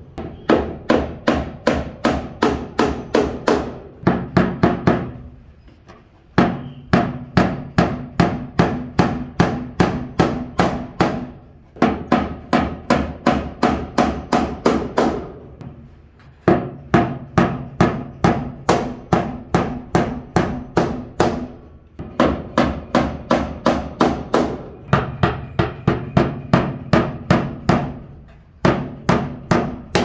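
Claw hammer driving nails overhead into wooden ceiling boards: quick, even blows about three a second, in runs of several seconds with short pauses between nails.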